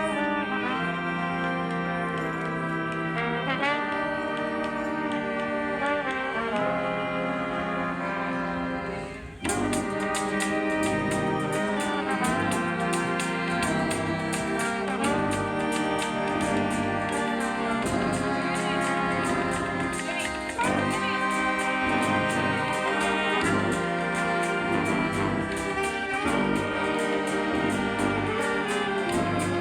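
Street brass band playing: the horns hold chords with swells and pitch bends. About nine seconds in, the drums and cymbals come in and the full band plays on at a steady beat.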